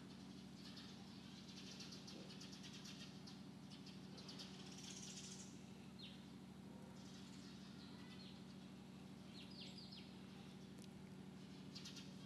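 Near silence: a steady low hum with faint, scattered bird chirps, a few short high ones around the middle and a quick run of chirps near the end.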